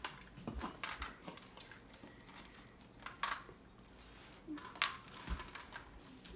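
Small hard snacks, candy corn, pretzels and nuts, being picked from bowls and dropped onto clear plastic plates: scattered light clicks and taps at an uneven pace.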